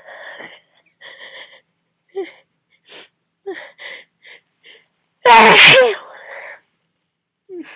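A person with a heavy cold catching their breath in a string of short, sharp gasps as a sneeze builds, then one loud sneeze a little over five seconds in, followed by a breathy exhale.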